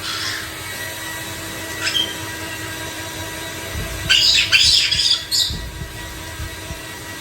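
White-bellied caique giving a quick run of harsh, loud squawks about four seconds in, with a couple of short calls earlier.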